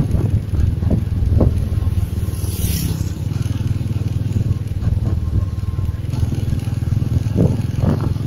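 Wind rumbling on the microphone over the road noise of a moving vehicle: a steady low rumble with a few brief gusts.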